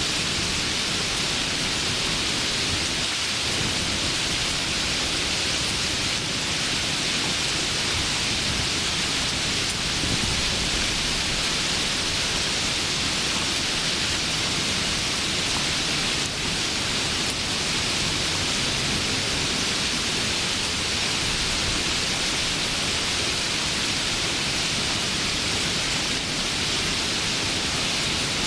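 Steady rain falling: an even, unbroken hiss, brightest in the upper range, with no single drops or claps standing out.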